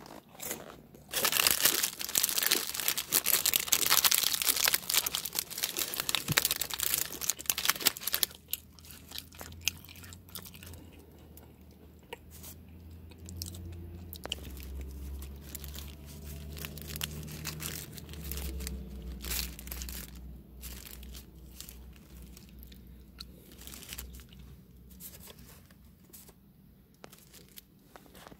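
Loud crinkling and crunching close to the microphone for the first several seconds, then softer, scattered crunching and chewing of crackers. A low hum sits underneath the later part, dropping in pitch twice.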